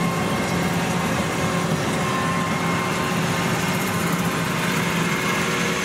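Kubota DC70-bodied rice combine harvester running steadily under load as it cuts and threshes rice: a constant engine drone with faint steady higher tones from the machinery.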